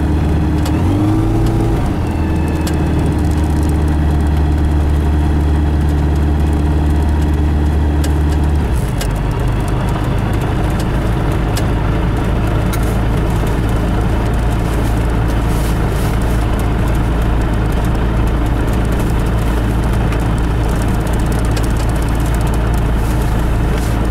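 Light aircraft's piston engine and propeller running at taxi power: a steady hum that steps up slightly in pitch about a second in. About nine seconds in the note changes to a lower, rougher drone, which carries on steadily.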